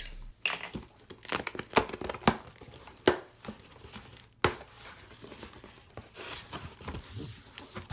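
Cardboard shipping box being opened by hand: packing tape tearing away and cardboard flaps being pulled back, with irregular crackling and a few sharp snaps.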